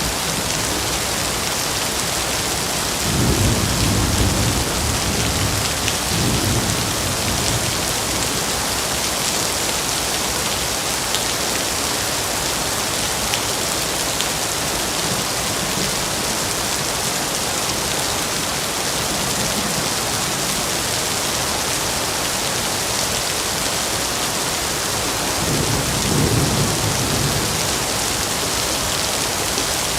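Steady heavy rainfall, an even hiss of rain falling on foliage and ground. Two low rumbles of thunder come through, one about three seconds in lasting several seconds and a shorter one near the end.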